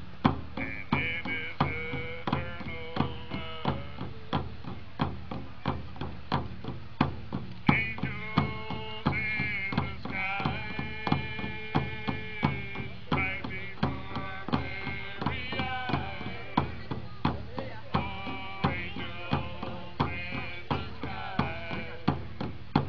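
Native American hand drums struck in a steady beat, about two beats a second, under voices singing long held notes.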